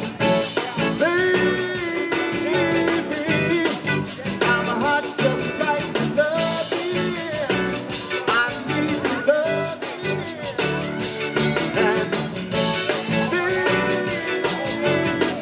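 Live zydeco band playing an upbeat song with a steady, fast beat: accordion, electric guitar, keyboard and drums.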